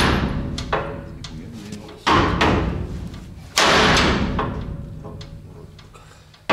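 Heavy hammer blows on steel during trailer drawbar repair: three hard bangs about two, three and a half and six and a half seconds in, each ringing and echoing away over a second or more.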